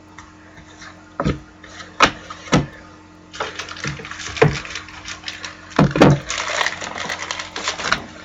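Trading cards and their pack being handled: a few sharp taps, then steady rustling and crackling from about three seconds in.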